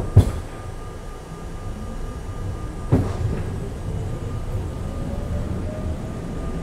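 R32 subway car starting to move: a couple of sharp clunks at the start and another about three seconds in, then the wheel rumble grows louder while the traction-motor whine rises in pitch as the train picks up speed.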